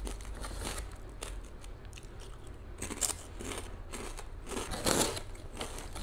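Crunching and chewing of salted egg salmon fish skin crisps close to the microphone: a run of brittle crackles, with louder crunches about three and five seconds in.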